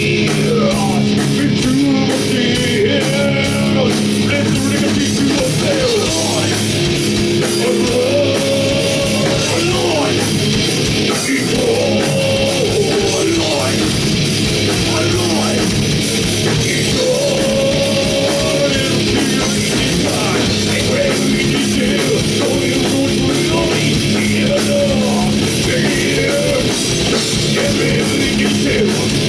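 Heavy metal band playing live, loud and steady throughout: distorted electric guitars and drums.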